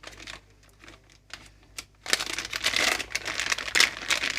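Crinkling, rustling handling noise, like plastic or packaging being handled. A few light clicks come first, then the rustling grows louder about two seconds in.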